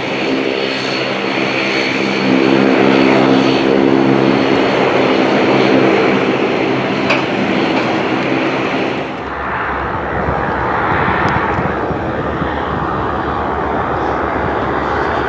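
Boeing 787-8 airliner on landing approach, its turbofan engines giving a steady whine of several tones over a rushing hiss. About nine seconds in the tones fade and a deep rumble takes over as the jet goes past.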